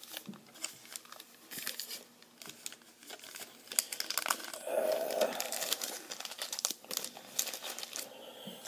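Foil trading-card pack wrappers crinkling as a stack of packs is picked up and handled, in irregular crackles with a denser stretch about halfway through.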